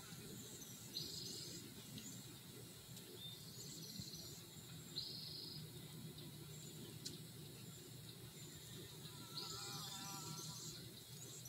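Faint outdoor ambience: a steady low background rumble, with short high buzzy trills several times and faint chirps.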